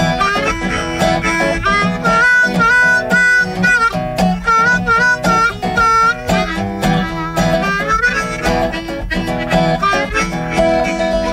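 Chicago blues harmonica playing an instrumental break over a backing band with guitar, repeating short held high notes in a rhythmic riff through the middle.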